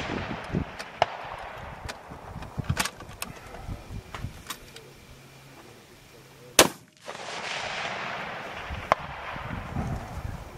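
A single loud rifle shot about two-thirds of the way through, its report echoing and fading over the next few seconds. Fainter sharp cracks come a few times before and after it.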